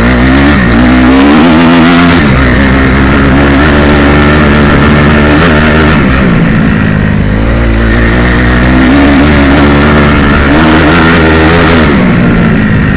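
2016 Honda CRF250R's stock single-cylinder four-stroke engine being ridden hard, its pitch climbing as it revs and then dropping back several times as the rider accelerates and shifts through the gears.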